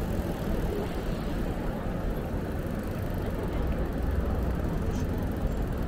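City road traffic heard from a moving bicycle: a steady wash of car engine and tyre noise over a low, fluctuating rumble.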